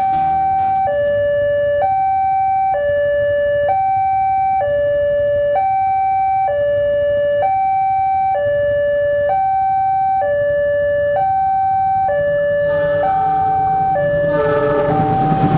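Railway level-crossing warning alarm sounding a steady two-tone high-low chime, each tone held just under a second. The pattern repeats evenly. Near the end a rising rumble and extra tones from the approaching train build under it.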